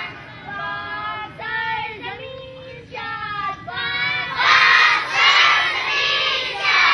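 Schoolgirls singing together: a few voices carry a line with held notes, then from about four seconds in the whole group joins in, louder.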